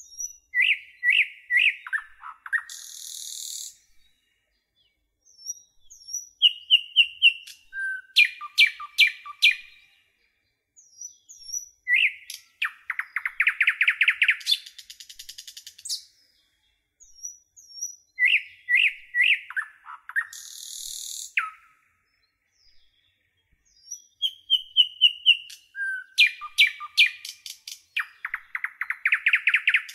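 A songbird singing in phrases a few seconds long with short pauses between them. Each phrase mixes sharp chirps, rapid trills and high whistled notes.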